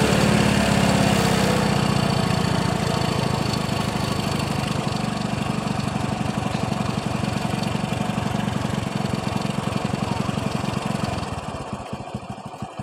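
Small motor of a homemade toy tractor running with a fast, even chugging pulse, dying away about eleven seconds in.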